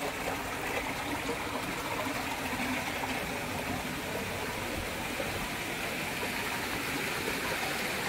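Steady rush of flowing water from a stream or cascade, an even sound with no distinct events.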